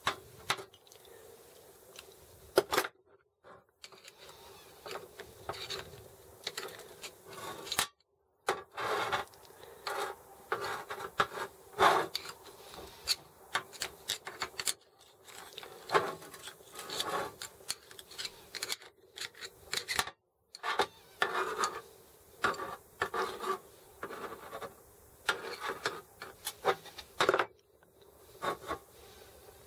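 Hand tools and metal parts of a Sturmey-Archer S5C internal gear hub clicking, scraping and rubbing as the greasy hub is taken apart, in irregular bursts over a faint steady hum, with a few short dead-silent breaks.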